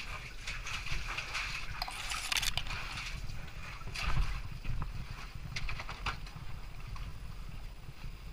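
Scrapes and knocks of a helmet-mounted GoPro in its housing brushing against rock during a climb through a narrow cleft, over a steady low rumble of wind and handling on the microphone. The loudest knock comes about four seconds in.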